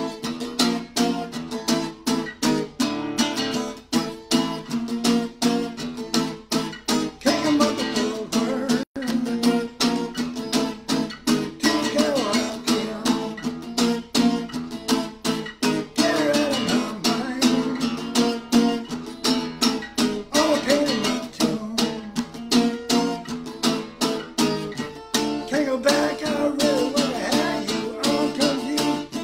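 Acoustic guitar strummed in a steady rhythm, chords ringing on through the strokes.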